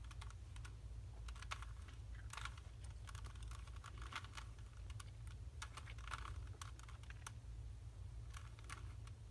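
Plastic Rubik's Cube layers being twisted by hand, giving irregular clusters of light clicks, over a steady low hum.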